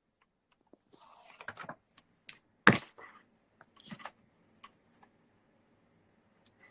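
Scattered light clicks and knocks at an irregular pace, with one sharp, louder knock near the middle.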